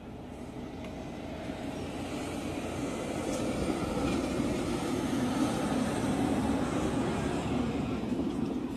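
A steady engine-like rumble that slowly grows louder.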